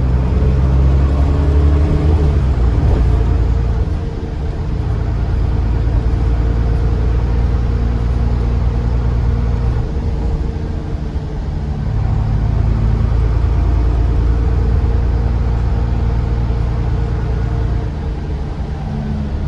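Diesel bus engine heard from on board while driving, its note climbing and then dropping back a few times as the automatic gearbox shifts.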